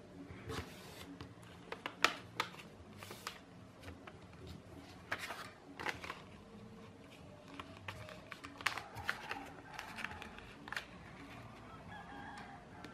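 A sheet of A4 paper being folded and creased by hand: irregular crinkling rustles and sharp swipes as fingers press the folds flat, coming a few at a time with short pauses between.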